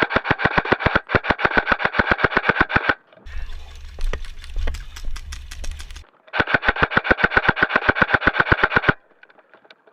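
Airsoft electric rifle, a Krytac Trident Mk2 with a Gate Titan trigger unit, firing two long full-auto bursts of about three seconds each, at about a dozen shots a second. The second burst starts about six seconds in, with a few scattered clicks between the bursts.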